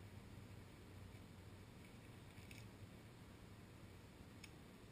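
Near silence: faint muffled ambience with a low steady hum and a few faint ticks, a small cluster about two seconds in and one near the end.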